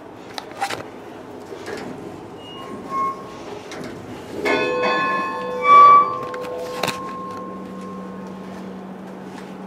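A metal bell struck twice, about a second and a half apart. The second strike is the louder, and its tone rings on for a couple of seconds before fading.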